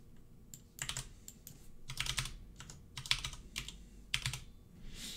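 Typing on a computer keyboard: irregular keystrokes, some singly and some in quick runs of a few, while a URL and the numbers 1920 and 1080 are entered.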